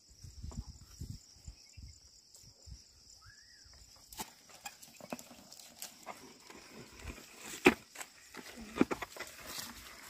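Irregular soft thumps and knocks of a pair of oxen plodding as they pull a wooden plough through soil, with one sharper knock about three-quarters of the way through.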